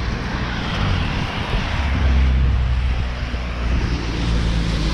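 Road traffic passing on a slushy street: a vehicle engine's low drone, loudest a couple of seconds in, over the hiss of tyres through wet snow.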